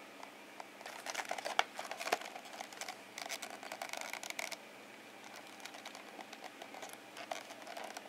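Faint, irregular clicks and crinkles of small objects being handled, busiest in the first half and sparser near the end.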